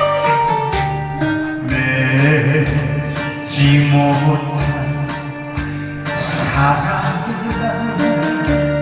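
Instrumental backing music for a slow Korean song, playing a break between sung verses over a steady beat.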